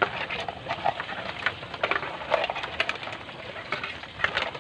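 A plastic bowl knocking and scraping against a plastic bucket as it is handled: a run of irregular sharp clicks and short scrapes.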